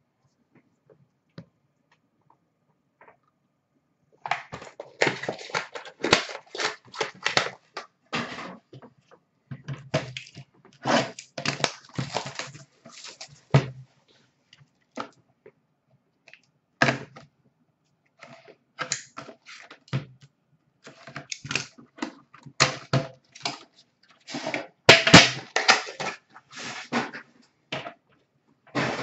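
Irregular bursts of crinkling, rustling and tearing as trading-card box packaging and its plastic wrap are handled and ripped open. The bursts start a few seconds in.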